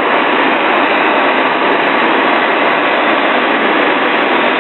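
Steady cockpit noise of a single-engine Shark light aircraft in flight: the engine running at climb power mixed with airflow, with no change in pitch or level.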